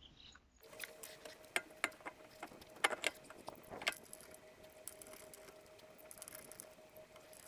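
Scattered metallic clinks and knocks of tools and metal parts being handled, loudest in the first half, over a faint steady hum.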